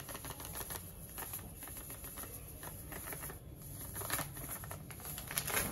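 Semolina (rava) being added to a pan of fried vegetables and stirred: irregular light clicks and scrapes of a spoon against the pan, with a soft patter of dry grains.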